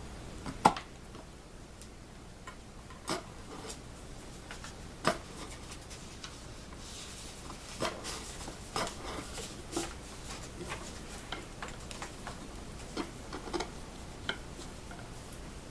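Hand-chisel work on the wooden dovetail heel of a mandolin neck: irregular light clicks and knocks with short scraping strokes, the sharpest click coming just under a second in.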